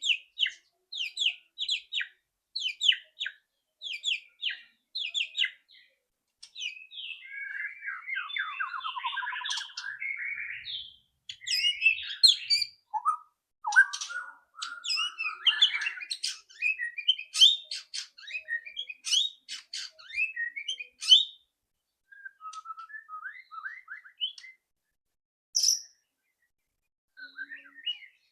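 White-rumped shama (murai batu) singing: quick runs of sharp repeated chattering notes, then a buzzy phrase, then a dense, varied run of rapid notes and whistles that thins out to scattered calls near the end.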